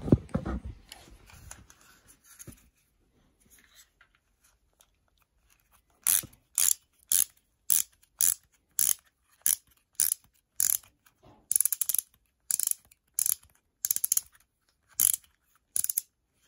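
Plastic toy spin-top launcher being wound by hand: its ratchet clatters in short bursts about twice a second, some sixteen times, starting about six seconds in. A knock of handling comes at the very start.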